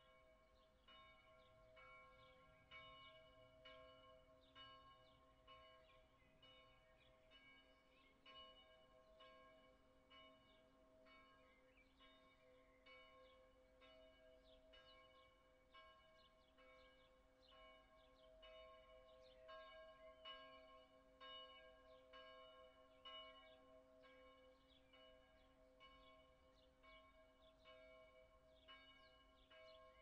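Church bells ringing, heard from a long way off: faint, a steady run of strokes about one or two a second over a lingering hum of the bells' ringing.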